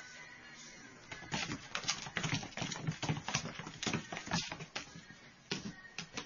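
A cat's paws and claws scrabbling and thudding on a hardwood floor as it dashes after a laser pointer dot: a quick, irregular run of knocks and scratches starting about a second in and thinning out near the end.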